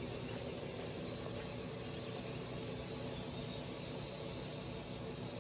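A steady machinery hum with several constant tones, over even outdoor background noise.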